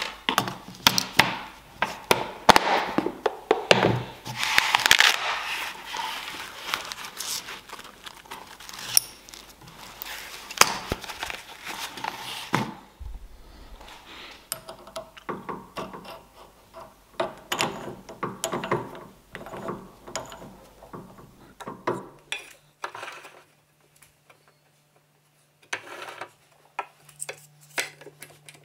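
Handling noises of small tools: a steady run of clicks, knocks and rustles as a dial caliper is laid into its plastic case and the case is handled, busiest in the first half. Later come sparser, lighter knocks while a plywood block is set on a drill press table, with a faint hum near the end.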